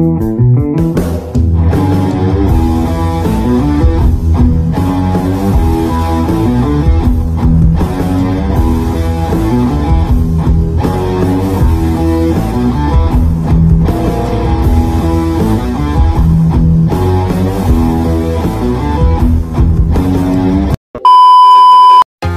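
Loud guitar-driven rock background music with bass and a steady beat. Near the end it cuts off and a loud, steady, high beep sounds for about a second.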